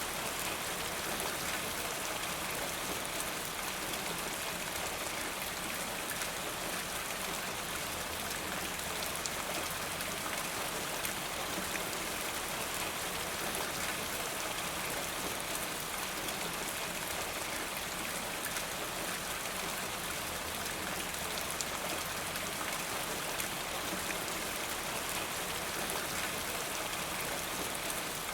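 Steady rain falling, an even hiss of dense drops pattering on a surface.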